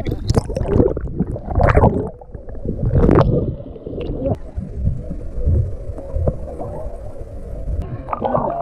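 Muffled water sloshing and gurgling against a camera bobbing at the sea surface, with irregular splashes and a low rumble as the lens dips in and out of the water.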